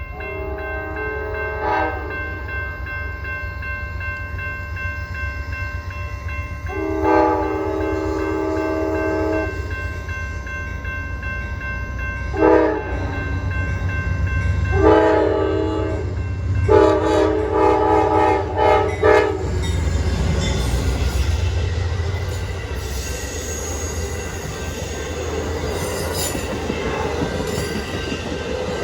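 Amtrak GE P42DC diesel locomotive sounding its multi-chime air horn in long blasts with one short blast, the pattern for a grade crossing, over the low rumble of the diesel engine. After the last blast the train passes close by, with wheels clicking over the rail joints and a rising rush of wheel and rail noise.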